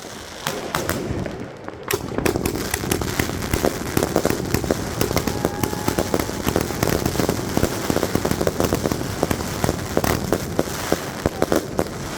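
China Red Bulldozer firework going off: a dense, rapid run of bangs and crackling, thickening about two seconds in and easing near the end.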